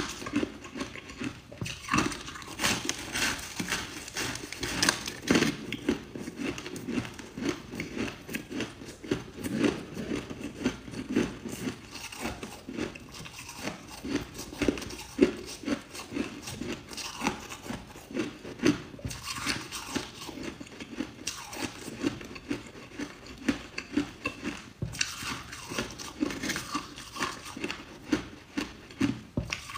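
A person biting and chewing lumps of packed, finely crushed ice close to a clip-on microphone: hard crunches, several a second.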